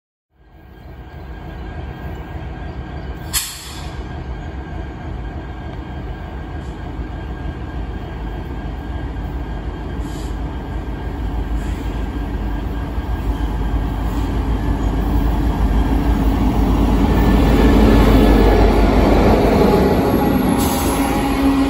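Freight train approaching and passing close by, led by a Norfolk Southern SD70ACe diesel locomotive, with idling KCS SD70MAC diesels alongside. The engine and wheel rumble grows steadily louder and is loudest as the lead locomotive goes by near the end. A brief sharp sound comes about three and a half seconds in.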